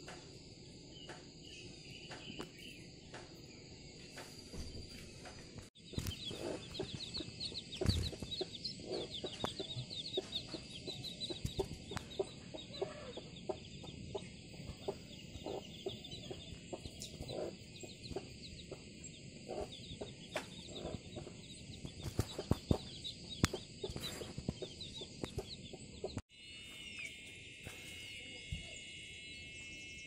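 A chicken's chick peeping in rapid high chirps, with lower clucking, over a steady drone of insects. For the first six seconds and the last four there is only the insect drone: crickets or cicadas buzzing at a steady high pitch.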